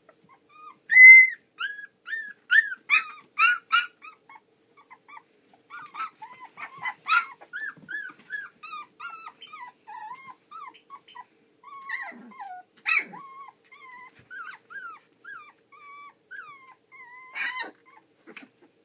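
A litter of three-and-a-half-week-old Nova Scotia duck tolling retriever puppies yipping and whimpering as they wrestle in play, in many short high calls. The loudest is a run of yelps in the first few seconds, with more flare-ups later.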